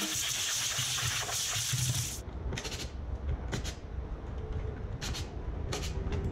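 Air-powered tool on a compressor hose running with a steady hiss as it drives the subwoofer's mounting screws. About two seconds in, this gives way to about five short bursts from a cordless impact driver.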